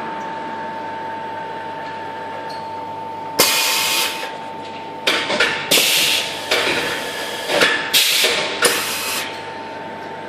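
Air hissing in about eight short, sharp bursts as a close-fitting CNC-machined part with no gasket is worked in its bore: the air is squeezed through or drawn past the very tight fit.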